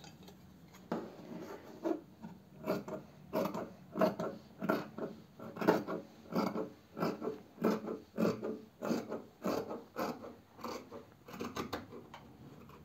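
Large fabric scissors snipping through jacket fabric in a steady run of cuts, about two to three snips a second, starting about a second in, as the armhole edge is trimmed along a marked line.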